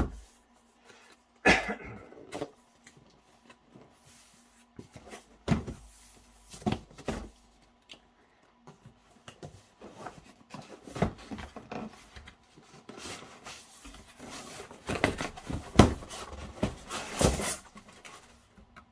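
Long cardboard box being handled and opened: irregular knocks, scrapes and rustles of cardboard, with a few sharper knocks, then a busier run of louder knocks and rustles near the end as the lid flaps are folded back.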